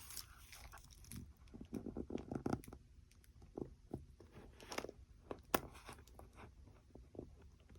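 Faint handling noise of heat-shrink tubing and a charging cable being worked by hand: scattered small plastic clicks and crackles, with one sharper click a little past halfway.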